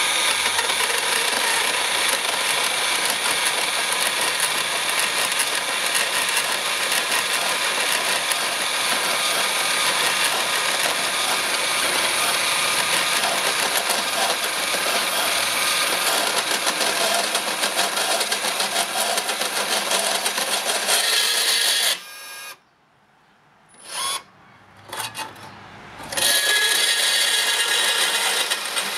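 Makita XGT PB002G 40V cordless portable band saw running at low speed (setting 2) with a worn blade, cutting thin-walled stainless steel tube with a steady, high metallic whine. About 22 seconds in it cuts out abruptly, gives two short spurts, and a few seconds later starts again and carries on cutting. The stop is the blade binding and stalling in the cut.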